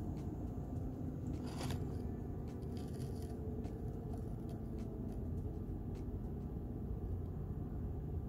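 Steady low rumble with a few faint clicks and light scrapes, the clearest about one and a half and three seconds in.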